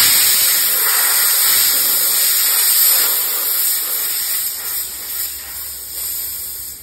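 High-pressure air hissing out of an opened bleed valve on a Cloverleaf 4500 psi airgun compressor, venting the stored pressure after the compressor has shut off. The hiss fades steadily as the pressure drops.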